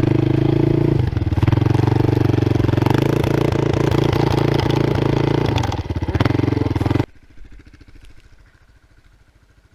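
Quad (ATV) engine running loud and steady close by, then cutting off abruptly about seven seconds in, leaving only quiet background.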